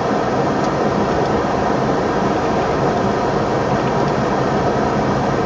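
Steady motor-vehicle noise, engine and road sound holding level without change.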